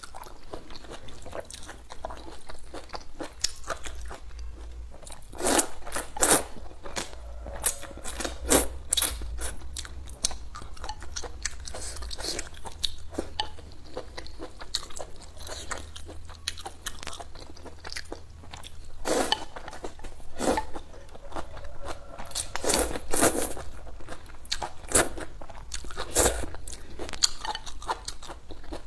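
A person eating noodle soup close to the microphone: chewing with irregular wet smacks and mouth clicks, and now and then a louder slurp or smack.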